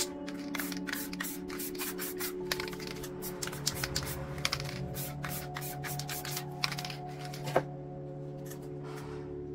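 Spray-painting work on a canvas: many short, irregular hissing and rubbing strokes, over background music with held notes.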